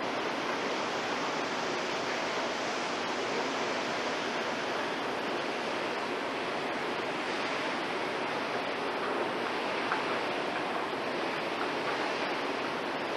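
A steady, even rushing noise with no tones in it, and a faint tick about ten seconds in.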